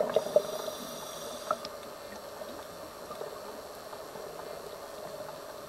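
Underwater ambience on a reef: a faint steady hum with a few scattered soft clicks. A louder burst fades out at the very start, in the lull between the diver's bubble bursts.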